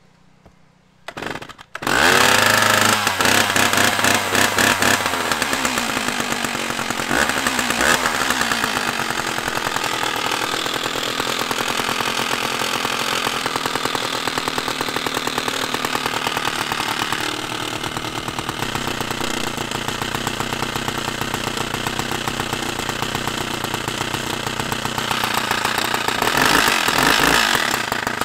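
Stihl 056AV 81cc two-stroke chainsaw started from cold: after a short burst it catches about two seconds in and then runs continuously, getting louder again near the end.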